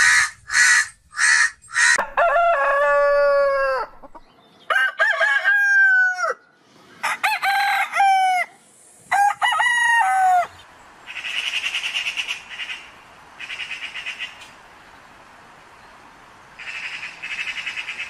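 A crow cawing four times, then a rooster crowing four times, each crow a long call that falls in pitch at the end. From about 11 s, three bouts of rattling chatter from magpies.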